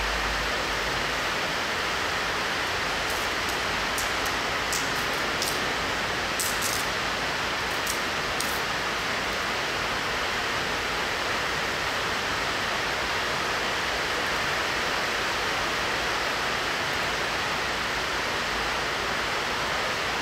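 A steady, even rushing hiss, with a few faint high ticks in the first half.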